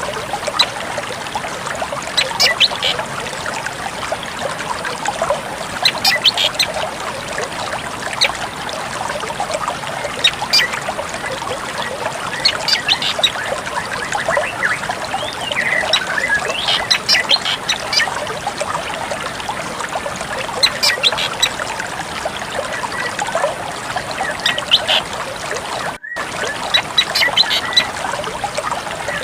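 A drongo giving short, high chirping and whistled calls every couple of seconds over a steady sound of trickling water.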